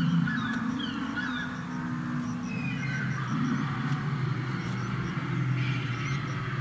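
Animatronic dinosaur's recorded growls and honking roars played through a loudspeaker, low, rough and drawn out, with short high chirps near the start.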